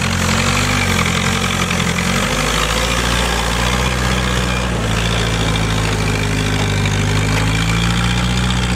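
GAZ-69 jeep's four-cylinder flathead petrol engine running steadily at low speed, its note shifting slightly about two and five seconds in.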